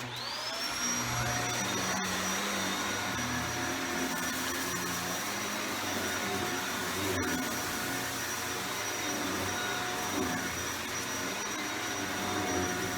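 Shark Powered Lift-Away Rotator Speed upright vacuum cleaner switched on: the motor spins up with a rising whine, then runs steadily.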